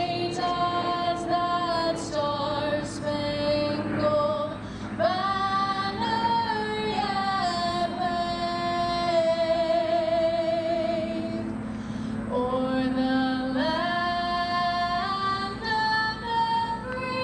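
A woman's voice singing over a public address system, with gliding phrases and long held notes that waver with vibrato.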